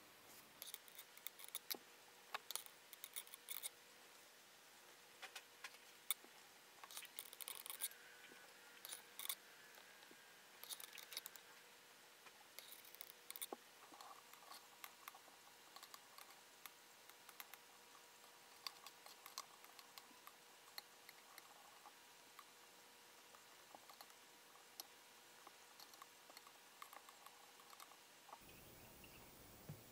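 Faint, irregular small clicks and taps of long metal tweezers working moss tufts into the soil of a glass terrarium jar, with light rustling between them.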